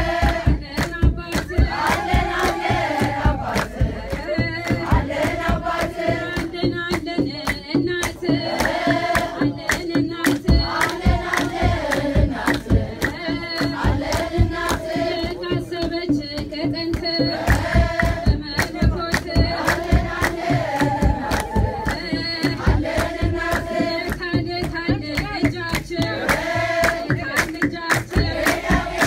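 Group of women singing an Ethiopian Orthodox mezmur (hymn) together, with hand clapping and a kebero drum beating a steady rhythm.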